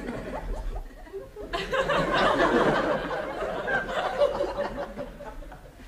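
Audience laughter, quiet at first, swelling into general laughing about a second and a half in and thinning out near the end.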